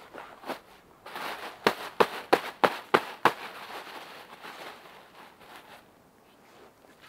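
Six sharp knocks in quick succession, about three a second, following a brief rustle.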